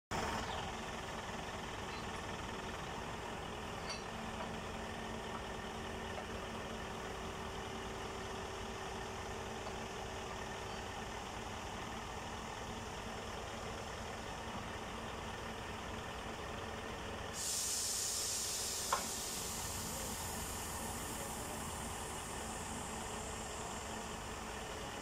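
Heavy diesel engine idling steadily. About two thirds of the way in, a loud hiss of air starts suddenly and slowly fades, with one sharp click just after it starts.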